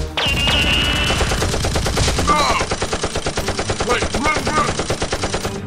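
Rapid automatic gunfire sound effect: a long, fast, even burst of shots dubbed over a Nerf blaster firefight, stopping near the end. A high ringing tone sounds just after the start, and brief shouts break through now and then.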